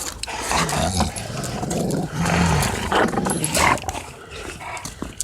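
Dogs growling during rough play, in several low, uneven stretches.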